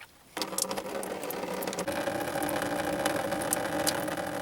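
Radiator coolant pouring out of the opened drain plug into a catch container: a steady stream that starts suddenly about half a second in, with light ticks.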